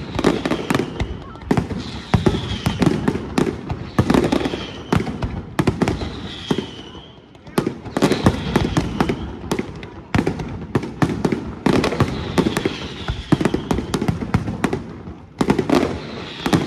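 Aerial fireworks display: shells bursting in rapid loud bangs and crackles that come in waves every second or two.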